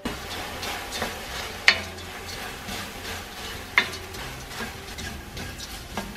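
A wooden spatula stirs and tosses dried shrimp coated in gochujang sauce in a wok, with a light sizzle underneath. Several sharp knocks and scrapes of the spatula against the pan stand out, the loudest about one and a half seconds in and again near four seconds.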